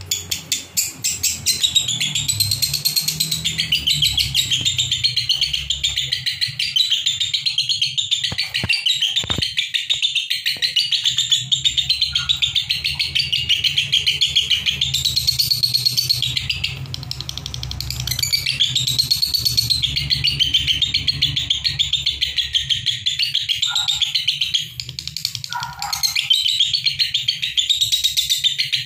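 Fischer's lovebirds chattering in a fast, high, unbroken stream of chirps with almost no pauses: the continuous 'konslet' song prized by lovebird keepers. The song dips briefly twice, about two-thirds of the way through and again near the end.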